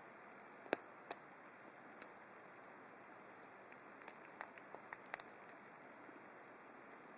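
Faint, sharp clicks of a thin hook pick and tensioner working the pin stack of a small brass padlock during single pin picking: a few isolated clicks in the first two seconds, then a quicker cluster of clicks about four to five seconds in.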